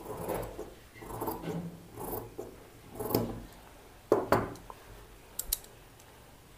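Large tailoring scissors cutting through cloth along a marked line: about four snips roughly a second apart, followed by a few sharper clicks and knocks about four and five and a half seconds in, the loudest of them near the four-second mark.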